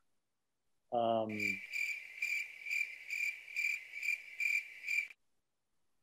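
A short hum from a man's voice about a second in, then crickets chirping, about two chirps a second, which stop suddenly after about four seconds: a cricket sound effect marking an awkward pause.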